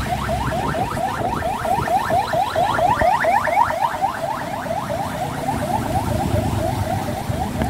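Ambulance siren in fast yelp: quick rising whoops, about six a second, growing louder to a peak about three seconds in and fading as it passes.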